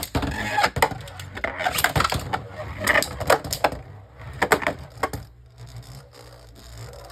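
Two Beyblade Burst spinning tops, Eclipse Genesis and Cosmic Kraken, launched into a plastic stadium, clattering and knocking rapidly against each other and the stadium walls. The knocks thin out after about five seconds, leaving a quieter steady whirr of the tops spinning.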